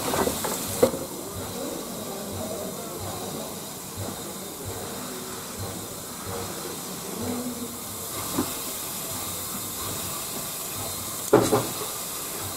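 Steady hiss of steam in the cab of an Er-class steam locomotive. A sharp metallic knock comes about a second in, and a louder cluster of clanks comes near the end.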